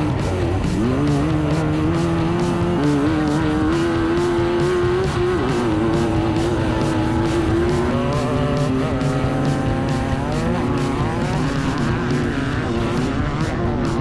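Class 9 VW buggy's air-cooled engine racing at full throttle, its pitch rising and falling as it revs and shifts, with a long climb in pitch in the second half.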